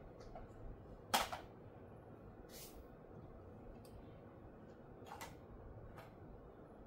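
A quiet room with a sharp click about a second in, a brief rustle a little later, and two fainter clicks near the end.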